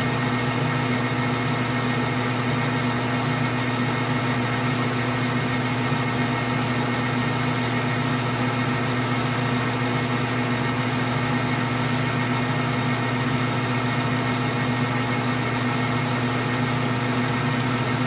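Small metal lathe running with a steady hum while a number 26 twist drill is fed from the tailstock into leaded steel.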